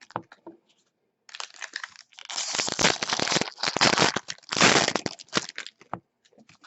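Plastic-foil wrapper of a baseball card pack crinkling and tearing in irregular bursts as it is handled and ripped open.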